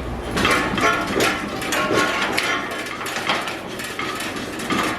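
Repeated metallic clanks and ringing from a freshly welded steel piece on a car frame being knocked to test the welds.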